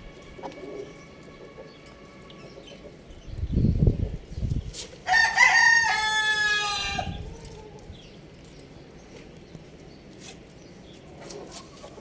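A rooster crowing once, a single call of about two seconds that begins about five seconds in. Shortly before it come a few low, dull sounds.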